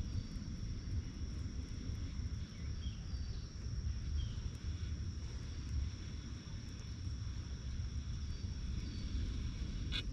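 Outdoor ambience: a low steady rumble, the loudest part, under a steady high insect drone, with a few short, faint falling bird chirps every second or two.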